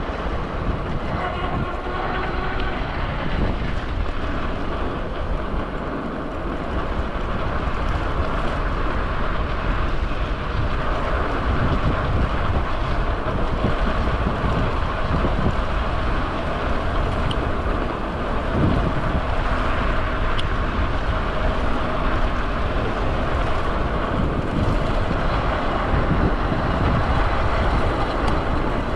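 Steady low rumble and running noise of a moving vehicle, continuous throughout with no sharp events.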